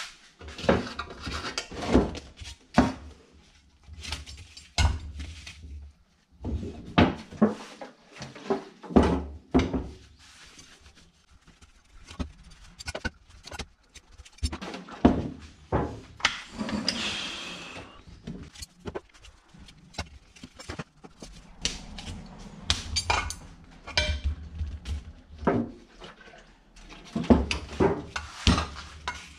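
A cloth rag rubbing over Yamaha RXS 115 alloy engine casings, with frequent knocks and clunks as the casings are turned over and set down on the workbench. They are being wiped clean with acetone before painting. There is a longer spell of rubbing about halfway through.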